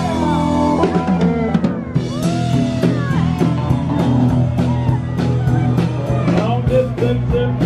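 Live band playing on electric guitar and drum kit, with the drums and cymbals keeping a steady beat that fills out about two seconds in.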